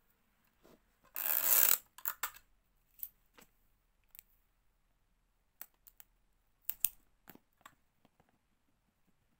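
Objects being handled: a brief rustling scrape a little over a second in, then a scatter of light clicks and taps.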